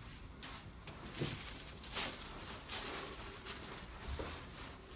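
Soft rustling and shuffling, a handful of brief scuffs, as a person settles face-down on a chiropractic treatment table.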